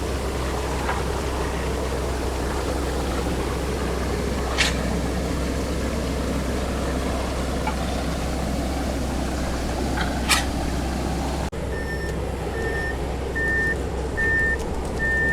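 Heavy truck engines from concrete trucks and a concrete pump running steadily, with a sharp knock about 4.6 s in and another about 10.3 s in. About 11.5 s in, the sound cuts, and a truck's reversing beeper then beeps repeatedly, about one beep every 0.8 s.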